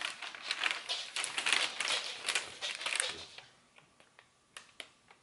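A large rolled sheet of paper being unrolled and handled, crinkling and rustling for about three seconds, then a few faint clicks.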